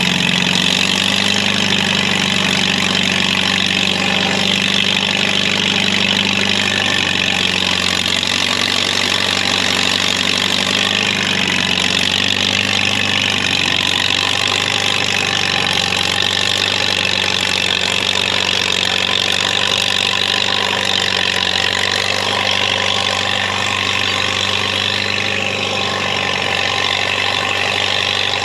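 Crawler tractor's engine running at a steady speed.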